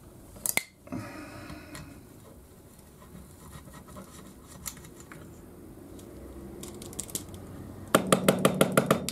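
Hand tools working on metal engine parts of a small moped engine. A sharp clink comes about half a second in, then a brief ringing scrape and scattered small ticks. Near the end comes a fast run of about eight loud metallic clicks.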